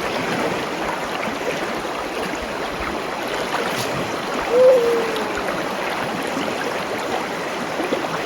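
River water rushing steadily. Just before the middle, a single short call slides down in pitch over about a second.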